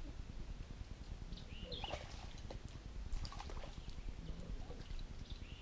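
Outdoor ambience: a steady low wind rumble with a few short bird chirps, about two seconds in and again near the end, and scattered faint clicks and rustles.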